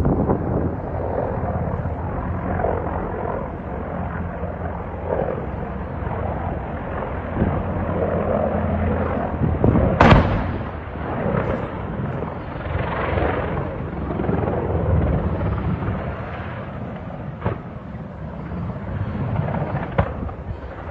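Helicopter rotor and engine drone running steadily, with one sharp bang about ten seconds in and a few fainter cracks later.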